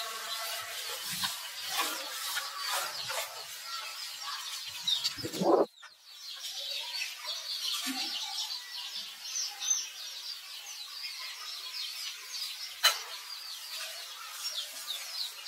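Outdoor bird chatter: many short, high chirps overlapping throughout. About five seconds in, a louder, lower sound rises and cuts off abruptly, and later there is a single sharp click.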